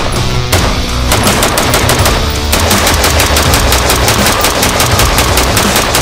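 Faxon FX5500 lightweight AR-15 rifle fired in rapid semi-automatic strings, the shots following each other several times a second, over background music.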